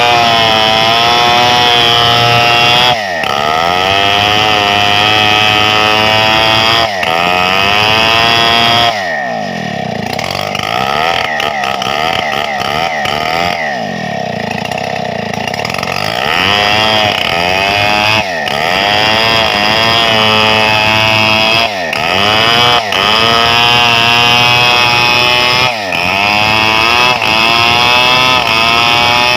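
Stihl 070 two-stroke chainsaw running at high revs while cutting a wide gmelina board. Its pitch sags and climbs back several times as the cut loads and unloads the engine, with a lower, lighter stretch about a third of the way in.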